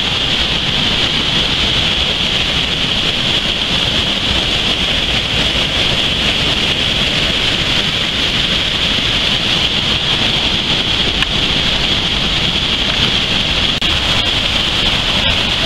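Storm-swollen stream in flood, brown water rushing and cascading over a stone drop in white foam: a loud, steady rush of water without a break.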